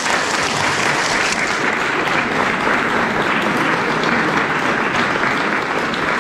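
Audience applauding, a steady mass of clapping from many hands.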